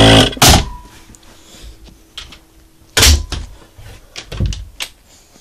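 Portable suction unit's motor switched on briefly, a loud buzz for about half a second followed by a shorter second burst. About three seconds in, a cabinet door thumps, with a few lighter knocks and clicks after.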